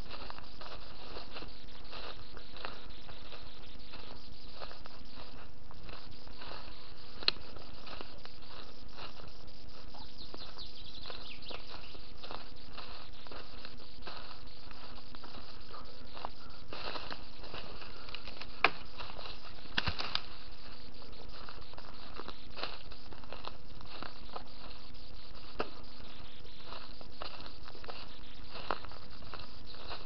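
Scattered crackles and rustles of dry twigs and leaf litter as someone moves through forest undergrowth, with a few sharper snaps, about a quarter of the way in and twice around two-thirds through. Under it runs a steady hiss with a low hum.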